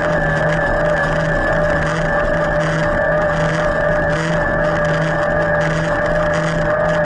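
An e-MTB's electric drive motor whines steadily at full Turbo assist, with a low hum that swells and fades in an even rhythm, a little under a second apart.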